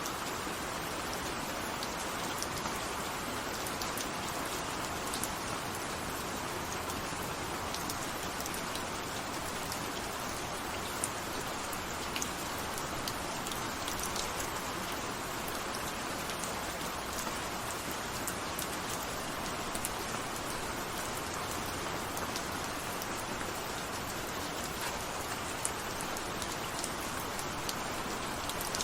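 Steady rainfall, a continuous even patter with scattered individual drop taps.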